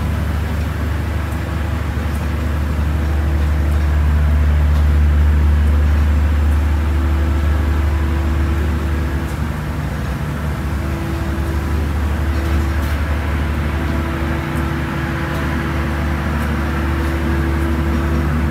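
Steady low machinery hum aboard a dinner-cruise dhow, a loud even rumble with faint constant tones above it, typical of the boat's engine or generator running.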